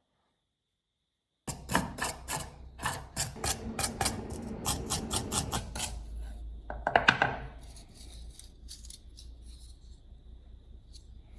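Hand-tool work: a quick run of sharp clicks and scrapes starting about a second and a half in, a louder cluster of clicks around seven seconds, then fainter ticking.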